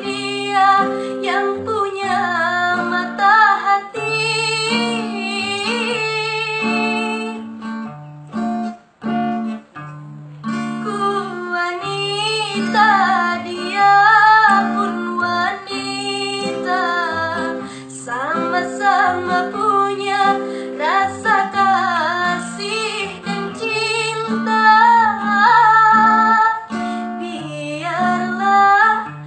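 A woman singing a melody with vibrato over an acoustic guitar accompaniment, with a short break in the sound about nine seconds in.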